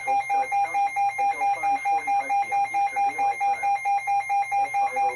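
Electronic alert alarm beeping rapidly and evenly, about five beeps a second at one steady pitch, sounding for a severe thunderstorm warning. The synthesized NOAA Weather Radio voice reading the warning continues faintly underneath.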